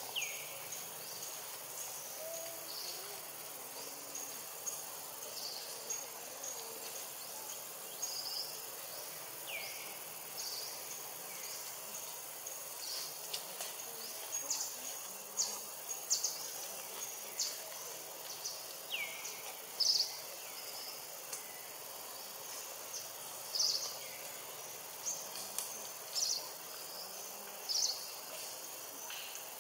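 Forest ambience: insects giving short high chirps every second or two over a steady background hiss, with three short whistles that fall in pitch.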